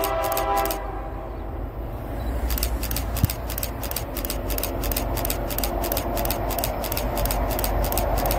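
Diesel freight locomotive's multi-note horn sounding a chord that cuts off just under a second in, then the low rumble of the approaching locomotives, growing louder towards the end. A rapid, even ticking runs at about four to five strokes a second, pausing for a couple of seconds after the horn, and there is one sharp knock about three seconds in.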